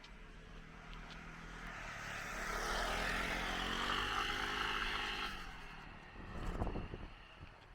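An engine passing by, swelling to a peak in the middle and fading away, with a low hum under a rushing noise; a few low thuds follow near the end.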